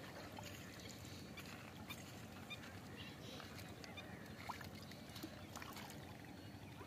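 Quiet lakeshore ambience: a low steady hum with a few faint, short bird calls and small clicks scattered through it.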